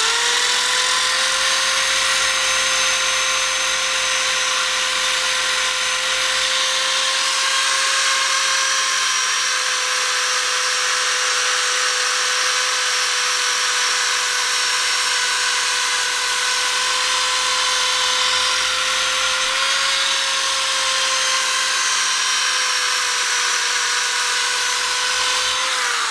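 Handheld electric sander spinning a small abrasive pad on a mandrel against a spoke of a cast motorcycle wheel, a steady high whine with small dips in pitch, scuffing through the coating on the spoke. Near the end the motor is let off and its pitch begins to fall.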